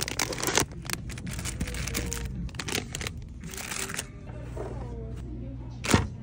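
Background music with a steady bass line. Over it, plastic candy bags crinkle and items clatter into a plastic shopping cart, with a sharp knock near the end as a bottle is set into the cart.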